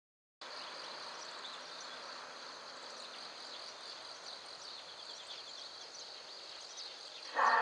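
Steady outdoor background noise with faint, scattered high chirps. Right at the end, the disaster-prevention radio's outdoor loudspeaker starts playing its chime melody, suddenly much louder.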